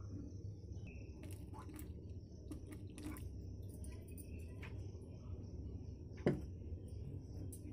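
A steel ladle stirring water into whole-moong dosa batter in a bowl: soft squelching with scattered light clicks of the ladle against the bowl, the sharpest about six seconds in, over a steady low hum.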